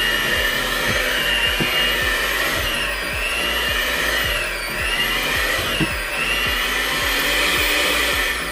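Black & Decker Performance Helix hand mixer running on speed 3 with dough hooks kneading stiff bread dough: a steady motor whine that sags in pitch several times as the dough loads the hooks, over a regular light knocking about three times a second. The motor winds down at the very end.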